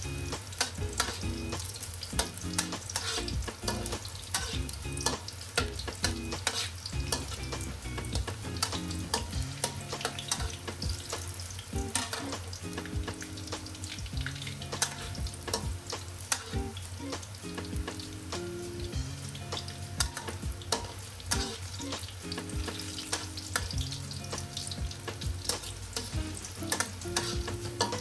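Cubes of eggplant frying in hot oil in a wok, a steady sizzle full of small crackles, with a metal spatula stirring and scraping them against the pan.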